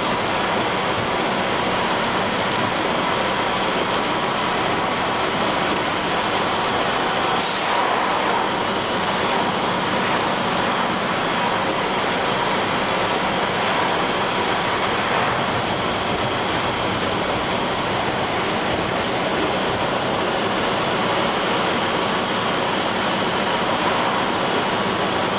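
1999 International diesel school bus on the move, its engine and road noise running steadily as heard on board. A short hiss comes about seven seconds in.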